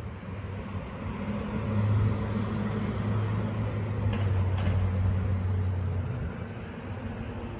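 A motor vehicle passing on a city street: a low, steady engine hum that swells about a second and a half in and fades out after about six seconds, over a background of traffic noise.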